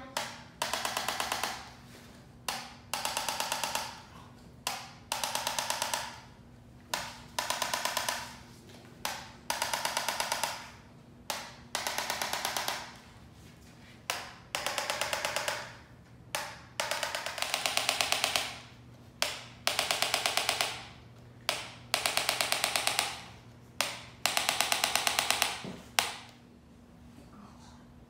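Handheld chiropractic adjusting instrument firing against the patient's back and hips: repeated bursts of rapid taps, each burst a fast string of clicks lasting about half a second to a second and a half, one burst every second or two.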